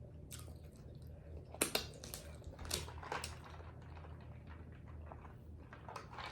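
A person chewing tacos close to the microphone: soft wet mouth clicks and smacks, with a cluster of louder bites between about one and a half and three seconds in.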